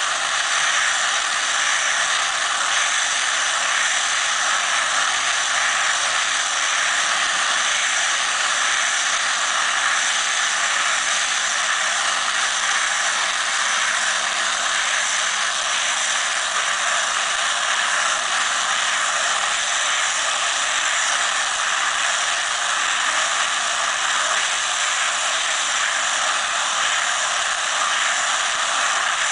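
Tractor running steadily while its mounted round-bale wrapper turns a bale of haylage and winds plastic stretch film around it, heard as an even, unbroken mechanical noise.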